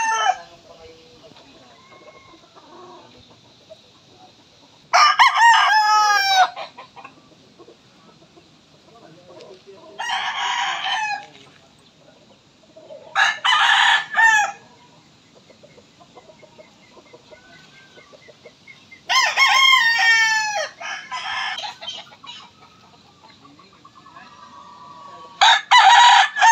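Roosters crowing: five separate crows spaced about five seconds apart, each lasting a second or two.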